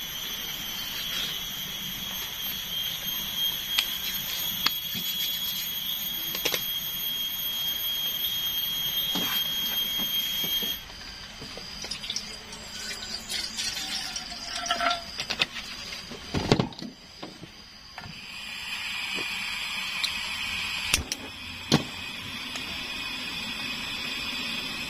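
A steady high buzz with scattered clicks for the first ten seconds, then an abrupt change to water poured into a metal camping kettle, its pitch rising as it fills. A sharp knock follows, then a portable gas stove burns with a steady hiss and a few clicks.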